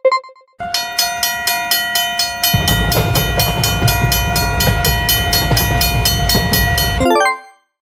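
Railway level-crossing sound effects: a crossing bell dings once, then from about half a second in a faster ringing of about four strokes a second runs over a steady held tone. From about two and a half seconds a passing train's low rumble joins in, and it all cuts off sharply near the end.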